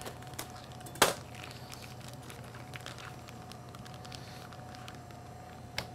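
Plastic bag crinkling and crackling as gloved hands handle and open it, with a sharper crackle about a second in and another near the end, over a steady faint hum.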